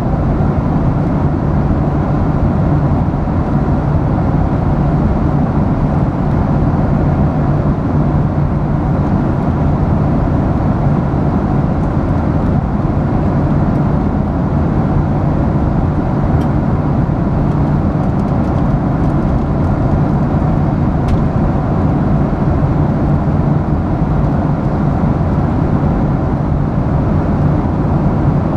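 Airliner passenger-cabin noise in cruise flight: a steady, deep rushing drone of jet engines and air streaming past the fuselage, unchanging throughout.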